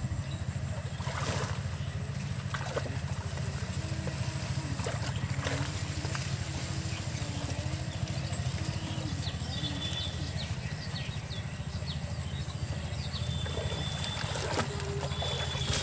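A steady low engine-like drone, with water sloshing and splashing as a man wades through a pond among water hyacinth.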